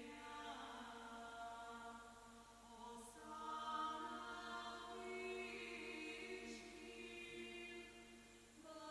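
Faint choral music: voices holding long, slow chords that shift a few times.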